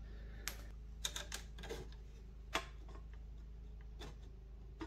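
About half a dozen scattered light clicks and taps as a small bent-tab flapper cap is handled and fitted onto the end of a pipe, the sharpest tap a little past halfway.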